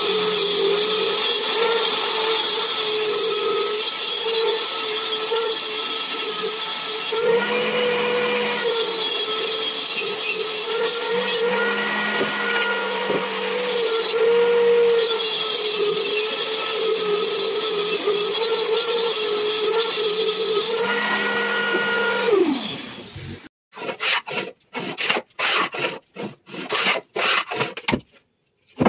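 Homemade table saw, its blade and motor set in a plywood box, running with a steady whine while a strip of wood is ripped on it, the sound changing in places as the wood is fed through. About 22 seconds in it winds down, falling in pitch. Then a hand plane is pushed along a wooden board in a run of short strokes.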